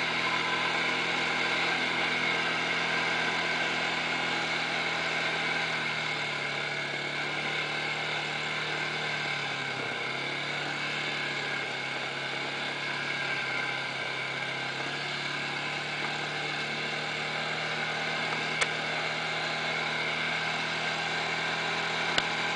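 ATV engine running steadily while it travels along a dirt trail. The engine note drops a little around the middle and picks back up, and there are two brief sharp ticks, one about three-quarters of the way through and one near the end.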